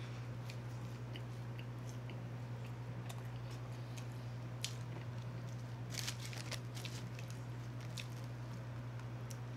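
Close-miked mouth sounds of a man chewing a bone-in chicken wing: small wet clicks and smacks, thickest about six seconds in. A steady low hum runs underneath.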